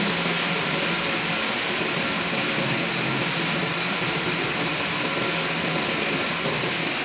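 Pet food production line machinery running: a steady mechanical whir and hum with a thin, steady high whine over it.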